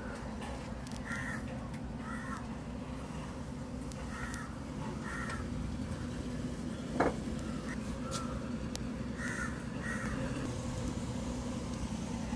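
Crows cawing in short calls, mostly in pairs, repeated every second or two over a steady low engine hum. One sharp knock comes about seven seconds in.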